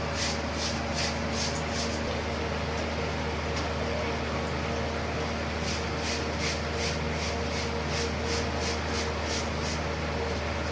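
A steady machine hum, with two runs of short hissing strokes at about three a second.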